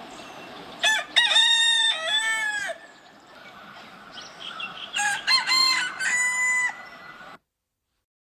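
A rooster crowing twice, each crow a loud, multi-part cock-a-doodle-doo lasting about two seconds, the two crows about four seconds apart. The sound cuts off abruptly near the end.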